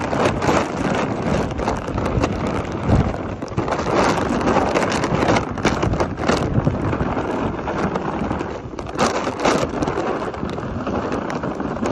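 Wind buffeting the microphone: a loud, rough rushing noise that comes and goes in gusts.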